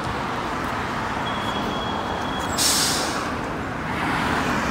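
Street traffic rumbling steadily. About two and a half seconds in, a passing bus's brakes give a thin high squeal, then a short sharp hiss of air.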